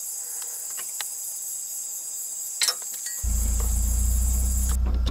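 Crickets chirping steadily at night, with a few light clicks of tools on the bolts. A little over three seconds in, a steady low engine hum cuts in abruptly and the chirping fades out.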